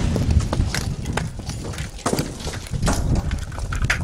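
Debris from a van blown apart by Tannerite raining down and landing: an irregular scatter of knocks and clicks over a steady low rumble, just after the blast.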